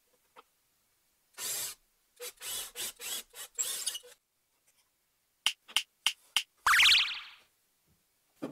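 Cordless drill boring into a wood block through a depth-stop jig, run in several short bursts as the bit cuts and chips pile up. Later a few sharp clicks, then a brief louder burst of the drill whose pitch rises and falls away.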